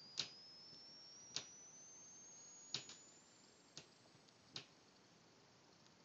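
Near silence broken by five faint, sharp clicks at irregular intervals of about a second, with a couple of fainter ticks between them. Under them runs a thin, faint high whine that slowly rises in pitch.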